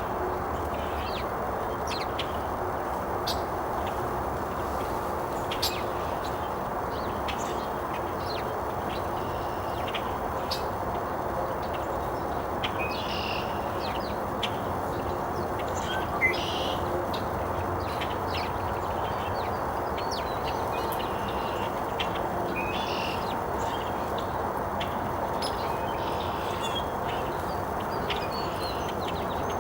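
Small wild birds chirping and tweeting in short, scattered calls, over a steady background hiss.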